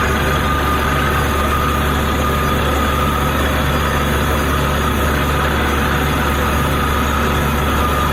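Borewell drilling rig running steadily: a heavy engine's constant drone with a steady high whine over it.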